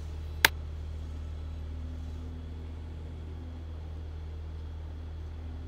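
Steady low hum with a single sharp click about half a second in.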